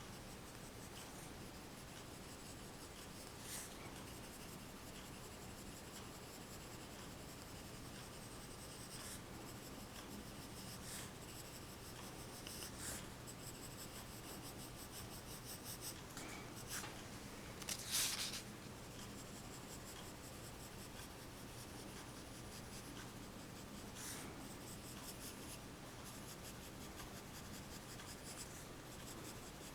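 Pencil scratching on paper in quick, repeated sketching strokes. A few strokes are sharper and louder, the loudest about eighteen seconds in.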